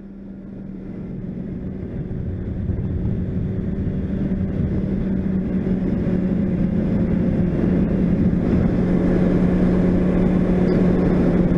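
Honda CBR600RR inline-four engine running at steady cruising revs, with wind and road rumble over the helmet camera. It fades in over the first few seconds and then holds an even, unchanging engine note.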